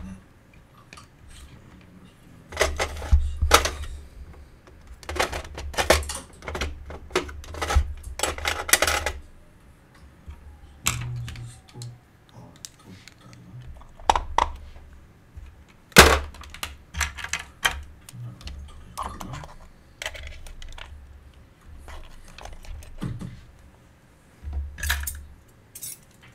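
Irregular clicks, clinks and knocks of small hard objects being handled and set down, in clusters with dull thumps underneath; the sharpest knock comes about sixteen seconds in.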